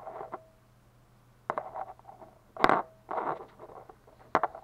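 Handling noise: a few sharp knocks and soft rubbing as a small plastic 3D-printed figurine is turned in the fingers close to the microphone. The loudest knock comes a little past halfway.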